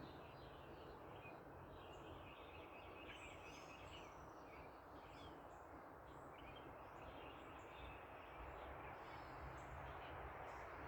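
Several small birds chirping and trilling on and off, faint, over a steady hiss of distant traffic.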